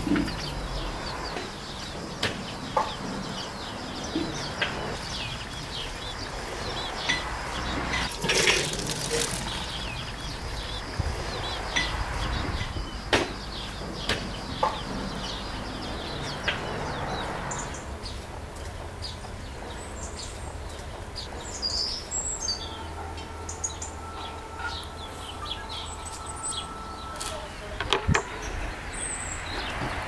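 Small birds chirping and chickens clucking, with a scattering of sharp knocks and clinks from metal pots and utensils.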